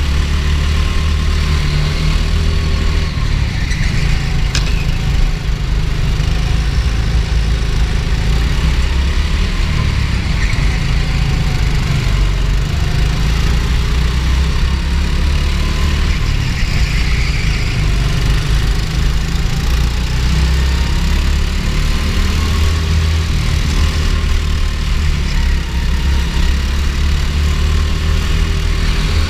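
Go-kart engine running under load, heard from a camera mounted on the kart, its pitch rising and falling as the revs change through the corners, over a heavy low rumble.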